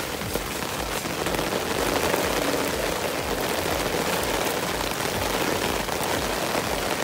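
Steady rain falling and pattering on surfaces close by.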